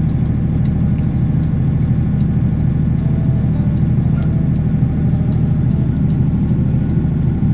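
Yanmar diesel standby generator running steadily at governed speed with no load connected, putting out about 52 Hz.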